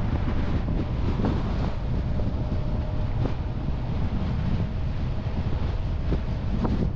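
A Toyota RAV4 driving slowly on a town street, a steady low rumble of road noise with wind buffeting the microphone.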